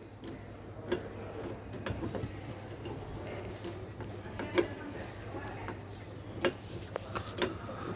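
Screw being driven by hand into a smart lock's mounting plate on a door: scattered light clicks, creaks and scraping as the screwdriver turns, over a faint low hum.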